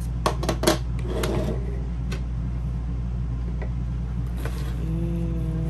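Hard gear being handled: three sharp clicks in quick succession in the first second, a short rustle, then single clicks about two seconds in and again later, over a steady low hum.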